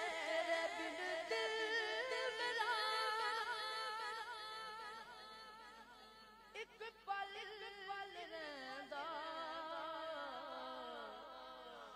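A male reciter singing a Punjabi devotional kalam into a microphone with no instruments, drawing out long held notes with heavy vibrato and ornaments. The voice grows softer through the second half and slides slowly downward near the end, with a few short clicks about halfway through.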